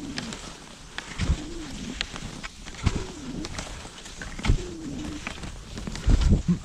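Rhythmic sounds of skate skiing on packed snow: a low thump about every second and a half as the skis push off and the poles plant, each followed by a short wavering hoot-like tone, with sharp pole clicks in between.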